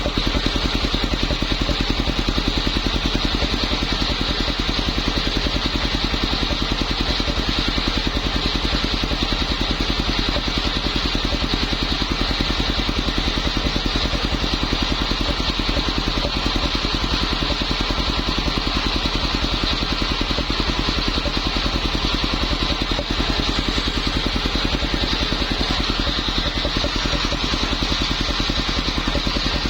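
Homemade circular saw rig running steadily, its motor giving an even, fast-pulsing note with a high band of sound above it.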